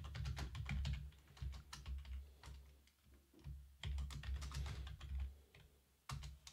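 Typing on a computer keyboard: two runs of quick key clicks, with a short pause about three seconds in.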